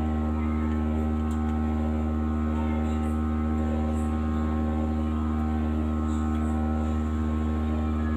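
Steady electrical mains hum with a buzz of many even tones, unchanging throughout. Faint light touches of a metal spoon spreading chocolate glaze over a donut sit on top of it.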